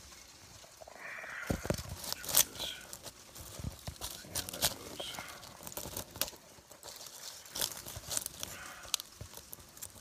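Irregular rustling and crackling with sharp clicks as a handheld phone brushes through plant leaves and is set down into dry mulch in a planter.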